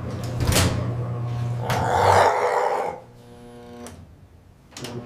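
Generated sound effects for a synthetic security-camera clip. A steady low hum runs under a louder rushing noise between about one and a half and three seconds in. It then drops to a quieter steady humming tone, with a couple of sharp clicks near the end.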